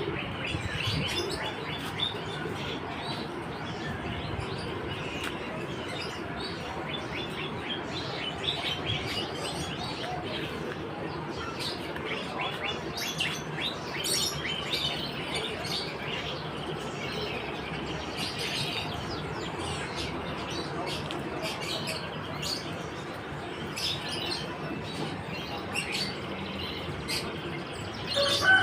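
Many caged songbirds chirping and twittering at once, a dense, continuous mix of short calls from birds for sale at a bird market.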